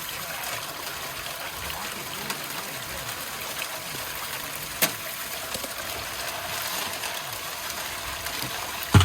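Water running steadily through a drop-riffle highbanker sluice on a pump-fed closed-loop water system. A sharp knock comes about halfway through, and a louder thump near the end.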